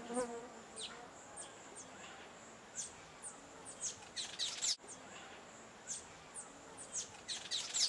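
Weaver birds chirping: a string of short, high chirps that slide downward, coming thicker about four seconds in and again near the end.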